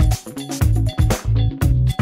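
Background music with a steady beat: repeating bass notes and drum hits.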